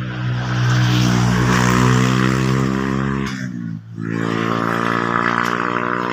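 An engine running steadily. Its pitch drops and it dips briefly just under four seconds in, then it carries on at a slightly lower pitch.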